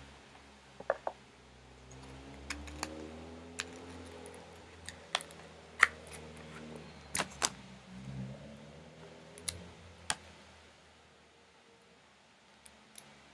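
Scattered sharp clicks and taps of trading cards in plastic holders being handled and set down, at irregular intervals.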